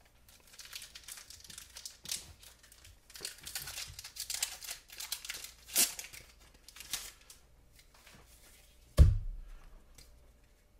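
Foil wrapper of a Pokémon TCG booster pack crinkling and tearing as it is opened, in a string of short rustles. A single dull thump comes about nine seconds in.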